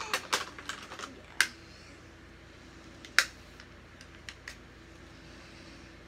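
A handful of sharp clicks and taps from plastic makeup cases and tools being handled, such as an eyeshadow palette and its clear lid. There is a quick cluster at the start, the two loudest come about one and a half and three seconds in, and two faint ones follow a second later.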